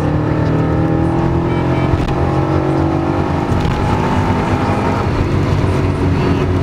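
Holden VR Commodore SS's 4.9-litre V8 accelerating hard, heard from inside the cabin. Its note rises steadily as the revs climb toward 6,000 rpm, then levels off about five seconds in.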